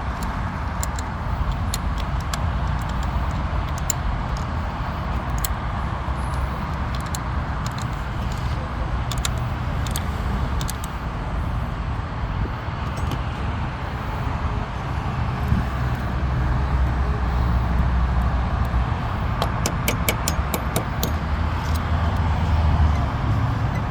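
Light metallic clicks and clinks of hand tools working on a car battery, a quick run of them near the end, over a steady low rumble that grows louder about two-thirds of the way in.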